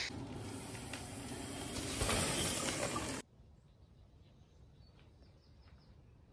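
Mountain bike tyres crunching over a dirt trail strewn with dry leaves and twigs, growing louder as the bike nears, then cut off suddenly about three seconds in. After that there are only faint bird chirps.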